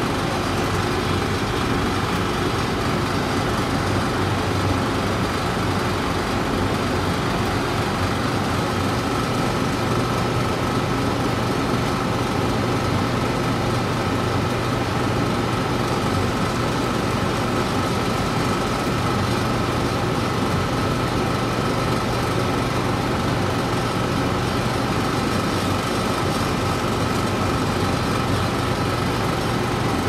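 Pellet stove running: a steady mechanical whir and hum of its blower fans, with a thin higher whine that grows stronger about ten seconds in.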